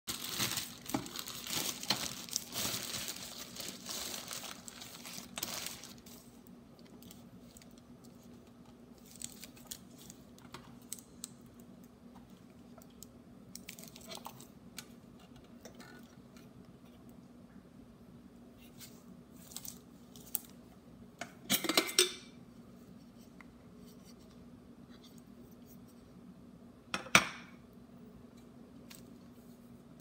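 Thin plastic bag rustling and crinkling for the first six seconds as a stainless-steel electric kettle is pulled out of it, then scattered light clicks from the kettle being handled. A short clatter comes about two-thirds through and one sharp knock near the end.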